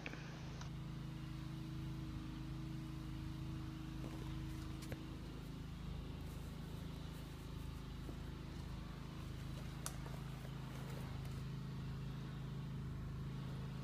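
Pressure washer running outside, a low steady drone with an even hiss that does not change. Two faint clicks break it, one about a third of the way in and one about two thirds in.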